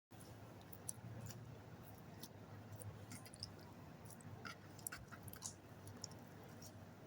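Clear slime being kneaded and mixed by hand: faint, sticky, irregular clicks and crackles over a low steady hum.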